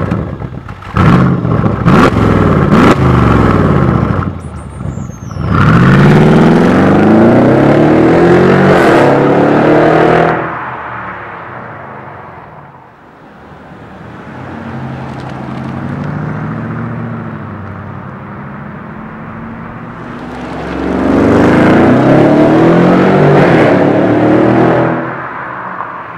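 Mercedes-Benz S500 coupé's twin-turbo V8 through a MEC Design aftermarket exhaust in its 'Earthquake' sound setting. A few sharp cracks come in the first seconds, then the car pulls away hard with the revs rising through gear changes. A quieter, steadier pass follows in the middle, then a loud full-throttle drive-by near the end that fades away.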